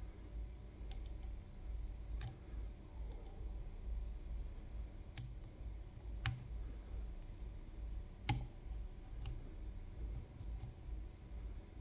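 Lock pick and tension wrench working the pins of a CISA AP3 lock: scattered small metallic clicks, the sharpest about five and eight seconds in.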